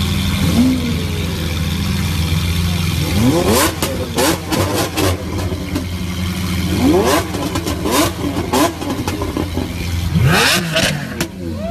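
Lamborghini Aventador SV's 6.5-litre V12 idling through a Fi Exhaust valvetronic catback system, then blipped sharply about six times from about three seconds in. Each blip rises quickly and falls away with sharp cracks from the exhaust.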